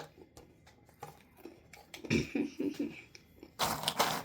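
A plastic mole smacker tapping on a game tile on a table: a quick run of soft knocks about two seconds in, then a short rustling noise near the end.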